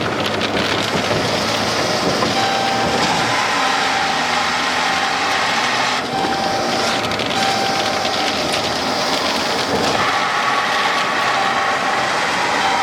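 Car driving at speed: steady road and wind noise.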